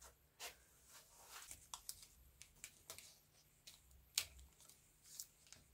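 Masking tape being pulled and pressed down across a ski binding: faint rustles and light clicks, with one sharper click about four seconds in.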